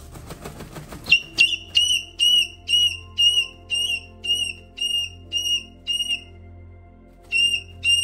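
A parrot giving a rapid series of short, high whistled notes, about two a second, each dipping slightly at the end. The run stops, then two more notes come near the end. A second of soft rustling comes before the first note.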